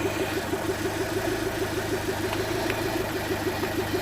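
2005 Land Rover Freelander 1.8 petrol's four-cylinder engine idling with a steady, rhythmic pulse; the idle is rough from a misfire that the technician puts down to worn spark plugs.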